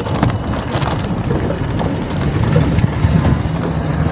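Vehicle driving over a gravel and dirt track: engine running under a low rumble, with tyres crunching and popping over loose stones, and wind on the microphone.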